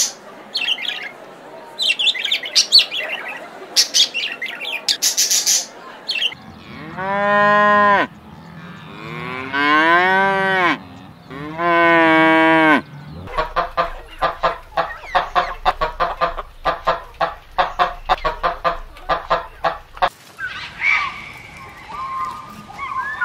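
A scarlet macaw giving a string of harsh squawks, then a cow mooing three times in long drawn-out calls. After the moos comes a fast rattling run of short pulses from another animal, and near the end a few higher calls.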